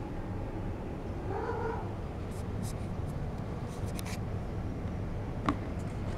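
A cat gives one short meow about a second and a half in. Then come light clicks and scrapes from the plastic bucket and its lid, and one sharp click near the end as the lid is set on the bucket.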